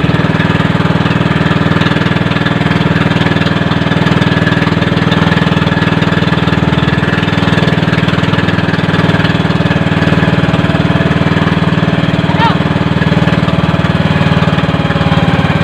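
Small boat engine of a motorized outrigger fishing boat (bangka) running steadily at low throttle.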